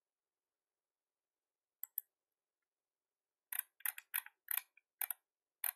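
Computer mouse clicking: two clicks just before two seconds in, then a quick run of about eight sharp clicks, roughly three a second, from about halfway through.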